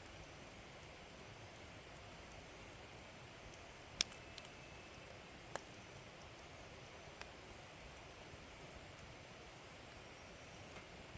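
Log fire in a fire pit crackling faintly, with a handful of sharp pops, the loudest about four seconds in.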